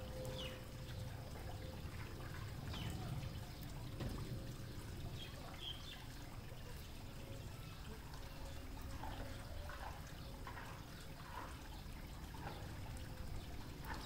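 Faint watery trickling and splashing from white domestic ducks dabbling and preening in a shallow puddle, over a steady low rumble. A few short, faint high chirps are scattered through it.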